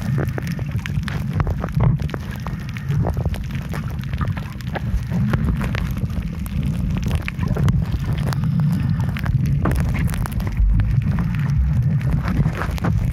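Underwater sound from a camera held under the sea: a steady low rumble of moving water with dense, irregular crackling clicks.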